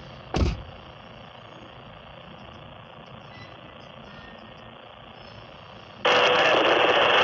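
Railroad radio scanner: a short low thump just after the start and a faint steady background noise, then about six seconds in a loud burst of squelch static cuts in suddenly.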